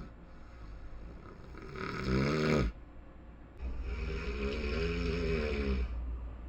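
A person snoring: two snores, a short one about two seconds in and a longer one from about three and a half seconds in.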